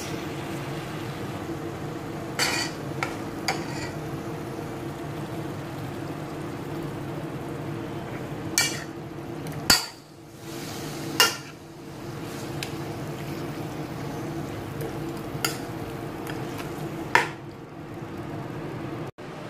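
Raw chicken pieces frying in hot oil in a non-stick pot, over a steady hum. A metal spoon clinks and scrapes against the pot about eight times as the chicken is stirred.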